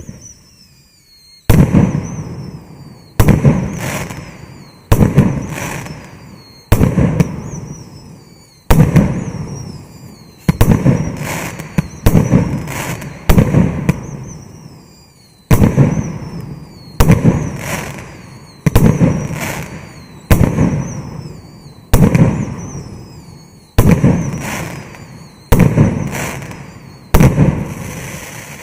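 Maxsem GP509 'Flower Boom' 19-shot firework cake firing its shots one after another. There is a loud bang about every two seconds, starting about a second and a half in, and each bang dies away before the next.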